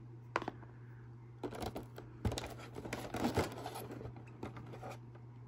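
Light rustling and small clicks of a clear plastic packaging tray being handled as robot-kit parts are lifted out of a cardboard box, over a steady low hum.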